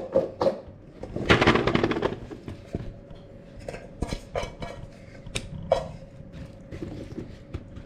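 Kitchen cookware and cutlery clinking and knocking in scattered sharp clicks, with a denser clatter a little over a second in.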